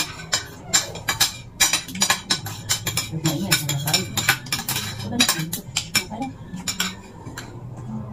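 Metal spoons and forks clinking and scraping on plates while people eat, in many quick, irregular clinks.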